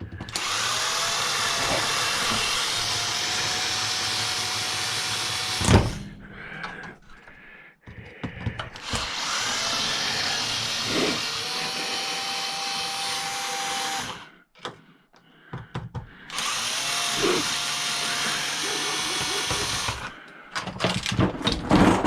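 Power drill-driver running steadily in three long runs of about four to five seconds each, with a steady whine, backing screws out of a jump-starter's plastic case. Short pauses with small clicks and handling knocks fall between the runs.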